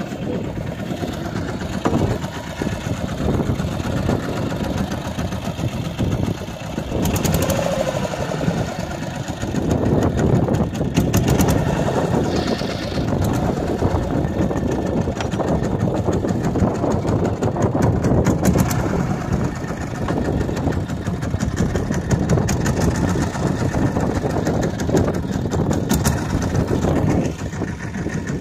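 Small fishing boat's engine running steadily under wind and water noise, with a few brief rattling clicks.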